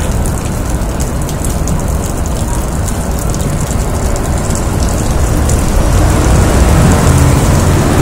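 Meltwater from melting ice dripping and pattering onto a wet sidewalk like rain, over a steady rumble of city traffic that grows louder near the end.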